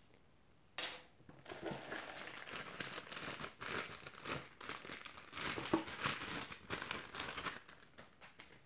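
Clear plastic bag crinkling and rustling as it is handled and pulled off a suction-cup car mount. It starts about a second in and dies away near the end.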